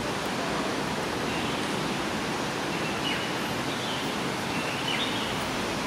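Steady rushing outdoor noise with a few faint, high bird chirps over it.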